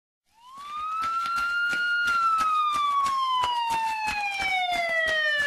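A siren wailing. Its pitch climbs for about two seconds, slides slowly down for over three, then swoops up again near the end, over a rapid run of sharp ticks.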